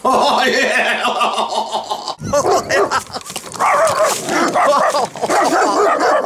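Dogs next door barking in a loud, nearly continuous run, with a brief break about two seconds in.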